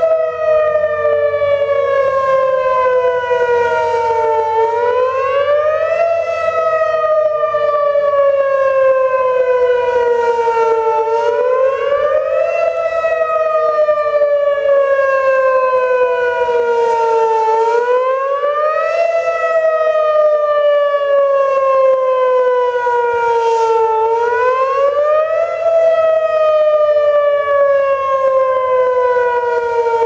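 Whelen electronic outdoor warning siren sounding a wail: a loud tone that rises quickly and falls slowly, repeating about every six and a half seconds. Other Whelen sirens wail fainter and out of step behind it.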